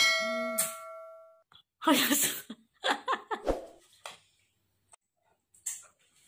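A bell-like notification chime from a subscribe-button animation rings at the start and fades away over about a second and a half. It is followed by irregular rustling and handling noise close to the microphone, with a dull bump about three and a half seconds in.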